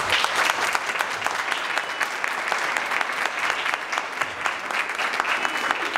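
A room of people applauding steadily, a dense patter of many hands clapping.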